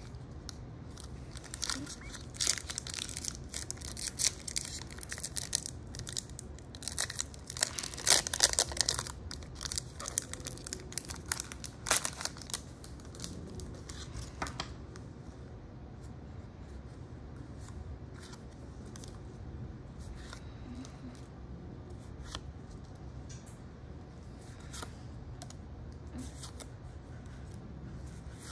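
Crinkling and tearing of a Pokémon trading card booster pack's foil wrapper, with the cards being handled. Busiest and loudest in the first half, then only scattered soft clicks from about halfway on.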